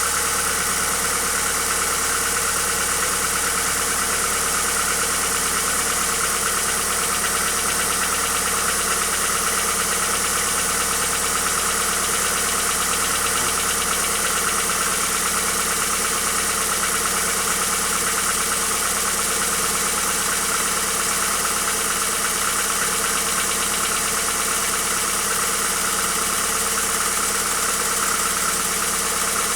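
Hyundai Accent engine idling steadily with a rhythmic knock from inside the engine.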